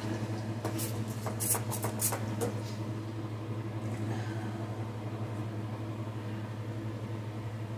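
Several short squirts from a trigger spray bottle onto a clear glass saucer, bunched between about one and two and a half seconds in, followed by quieter wiping of the glass with a paper towel to clean it. A steady low hum runs underneath.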